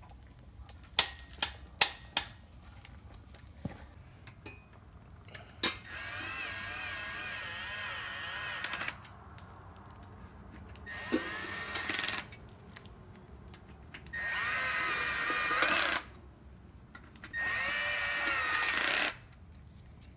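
Handheld cordless power tool run in four bursts of one to three seconds each, its motor whine wavering in pitch, working on bolts at an engine block. A few sharp metallic clinks come shortly before the first burst.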